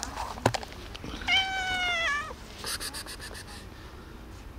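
A cat meows once, a drawn-out meow of about a second that drops in pitch at the end, starting a little over a second in. A short click comes just before it.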